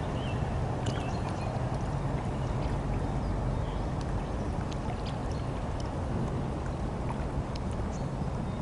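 Small outboard motor on an inflatable boat running steadily, a constant low hum with water noise.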